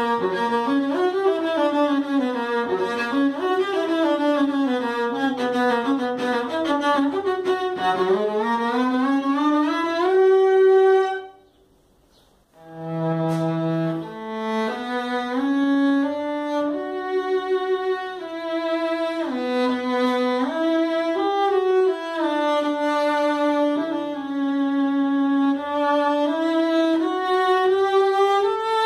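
Solo cello played with the bow: a fast run of quick notes for about ten seconds ends on a held note, a short break follows, then a slower passage of long sustained notes.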